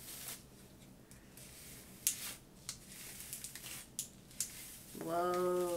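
Unbrush detangling brush dragged through wet, conditioner-coated hair: a run of short, irregular swishing strokes. About five seconds in, a woman's voice holds a steady wordless tone for under a second.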